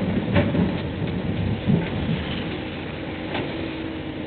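Komatsu hydraulic excavator at work: a steady rough rumble of the engine and the bucket digging dirt, with two sharp knocks.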